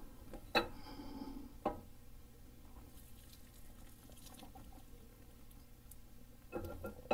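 Camshaft being slid by hand through the cam bearings of a GM V8 engine block: a few sharp metallic clicks and knocks, about half a second and a second and a half in, and a cluster near the end, with faint light ticking in between.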